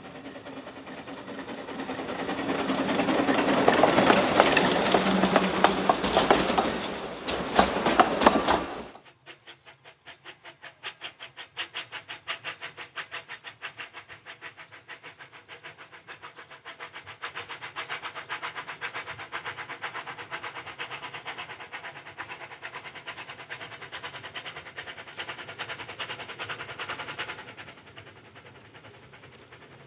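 A narrow-gauge Quarry Hunslet saddle-tank steam locomotive working hard close by, with loud steam exhaust and hiss that builds, then cuts off abruptly about nine seconds in. After that, the train runs on in a steady, quicker clicking that stops a couple of seconds before the end.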